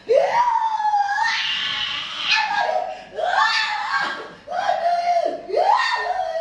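A man cries out over and over, loud drawn-out yells that each rise in pitch and then hold, as a healer presses hard on his back during nerve-pressure massage.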